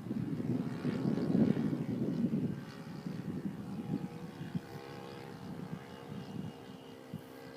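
Radio-controlled Yak 54 model aerobatic plane flying overhead, its propeller engine giving a steady droning note that fades as the plane draws away. The first couple of seconds are rougher and louder.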